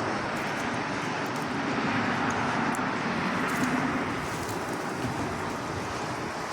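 A car passing, its engine and tyre noise swelling in the middle and then fading.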